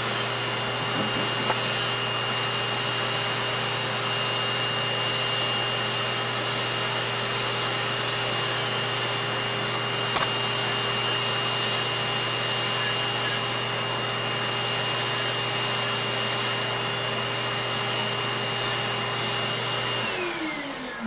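Podiatry nail drill running steadily at one speed, then switched off near the end, its whine falling as the motor spins down.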